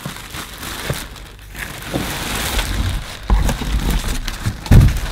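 Packaging rustling and crinkling as a vacuum cleaner is lifted out of its box, with a couple of dull thumps, the loudest near the end.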